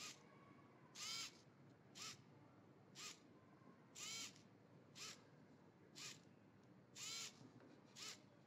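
TowerPro SG90 9 g micro servo whirring in faint short bursts about once a second as its plastic-geared motor drives the arm to each new angle. Every third burst is longer, and each one rises and then falls in pitch as the motor speeds up and stops.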